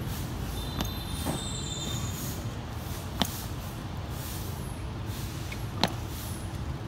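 Tennis balls being tapped and bounced on a hard court: a couple of light knocks about a second in, then two sharp bounces about two and a half seconds apart, over a steady low rumble.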